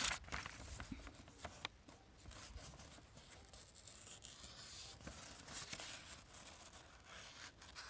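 The blade of a Bushbaby pack hatchet slicing through a sheet of paper, with a faint soft hiss and rustle and a few light clicks. This is a sharpness test, and the edge cuts the paper cleanly: pretty sharp, though not razor sharp.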